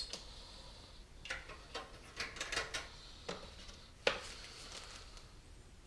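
Light clicks and taps of small metal case screws and hardware being handled, a scattered run of them with the sharpest click about four seconds in.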